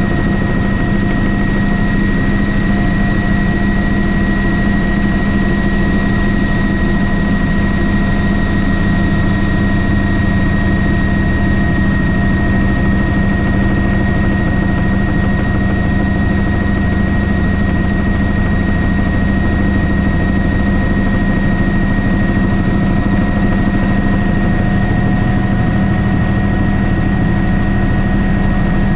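Helicopter in flight, its rotor and engine running steadily and loudly, with steady high-pitched whines over the low drone.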